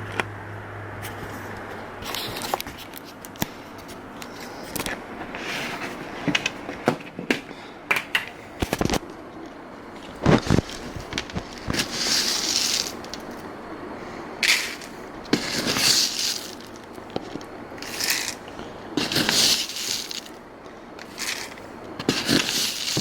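Kitchen food-prep handling: irregular clicks, knocks and scrapes of containers, scoop and bowl, with short rustling, pouring-like bursts every few seconds as rolled oats and protein powder are measured out. A low hum cuts off about a second in.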